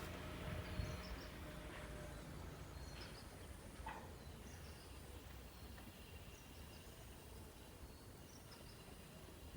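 Faint rural ambience: a low engine rumble that fades away over the first two seconds or so, with scattered short, high bird chirps.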